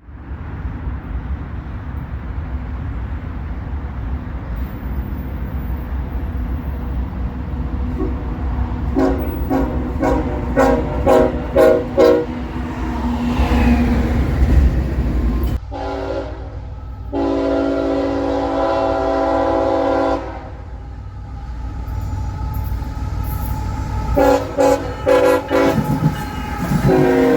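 Locomotive air horn sounding over the steady rumble of a moving train. A run of short blasts comes about a third of the way in, then one long blast of about four to five seconds, then more short blasts near the end.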